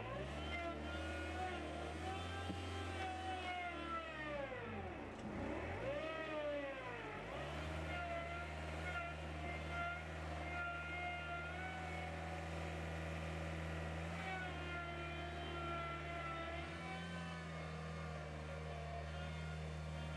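Skid steer loader's engine running at steady revs. Its pitch sags sharply about four seconds in and climbs back up by about seven seconds, then holds steady again.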